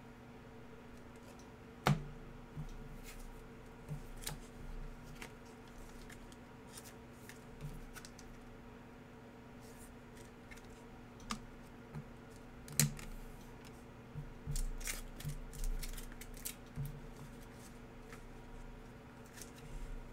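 Trading cards being handled and set down on a table: scattered light clicks and taps, a sharper one about two seconds in and another just past the middle, then a quick run of taps soon after. A faint steady hum runs underneath.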